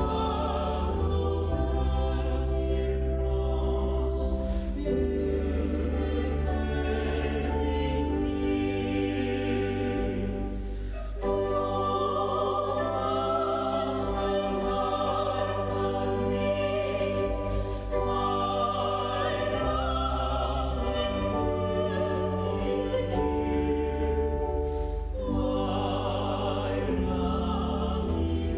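Church music: singing with instrumental accompaniment, long held notes with vibrato over a steady deep bass, with a brief pause about eleven seconds in.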